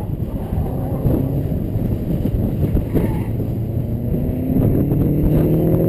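2012 Mustang GT's 5.0 V8 with a Borla ATAK exhaust running at idle while the car stands still, its pitch rising gently over the last couple of seconds as the revs come up.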